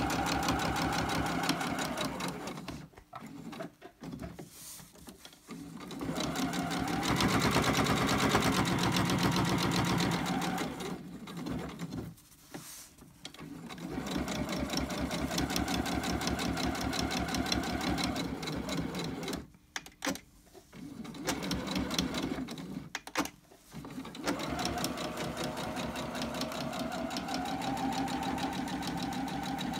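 Electric sewing machine top-stitching a seam close to the fabric edge and back-tacking over the pockets. It runs in bursts of rapid needle strokes lasting several seconds, with short stops between them, and is loudest about seven to ten seconds in.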